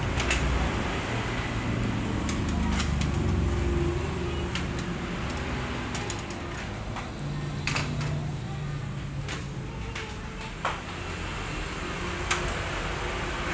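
Scattered clicks and knocks as the plastic side cover of a Canon imageRUNNER copier is unlatched, lifted off and handled, over a steady low background hum.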